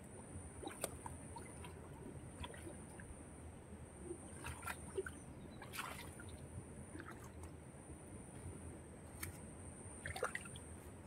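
Hands groping and sloshing in shallow muddy water, with scattered small splashes and trickles.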